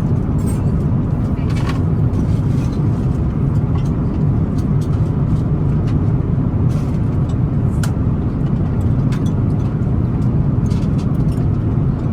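Steady low rumble of an Airbus A350-900's passenger cabin in flight, the engine and airflow noise heard from a seat, with a few faint scattered clicks.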